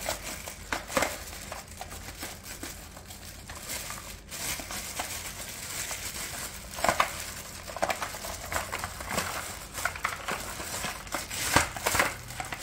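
Clear polyethylene packaging bags crinkling and rustling as they are handled and pulled off a new stick vacuum's parts, in irregular crackles with louder bursts about seven seconds in and near the end.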